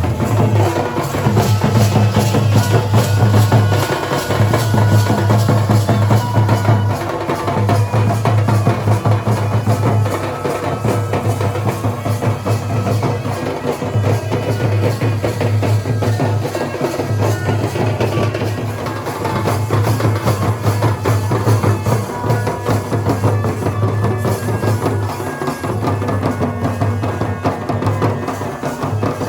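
Dhol and nagada drumming: rapid, dense strokes over a deep booming low drum note that repeats in phrases about two seconds long, with short breaks between them. Sustained pitched notes sound above the drums.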